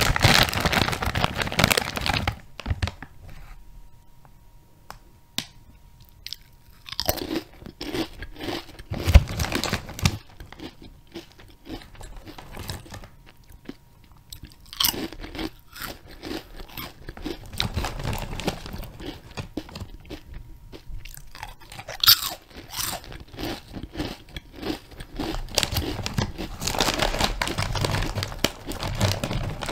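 Close-miked crunching and chewing of a crunchy watermelon churro snack, in separate bouts with quiet pauses between them. A wrapper crinkles in the first couple of seconds.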